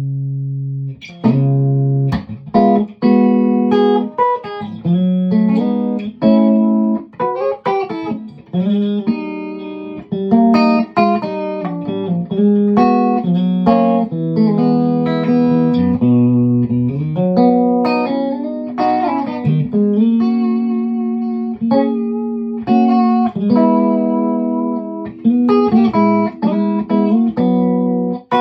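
Tom Anderson Classic electric guitar played through an amp with all three of its SC stacked single-coil pickups switched on together, boost off: a run of picked notes and chords, with a slide up in pitch about halfway through.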